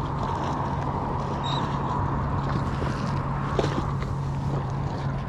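A motor's steady low hum held on one pitch, over a wash of wind and water noise, with a few light knocks from rope handling.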